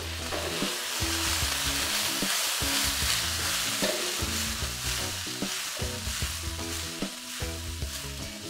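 Water splashed into the hot oil of a skillet of pan-fried potatoes and garlic sizzles hard as it flashes to steam, then gradually dies down. Metal tongs stir the potatoes through it, with light clicks against the pan.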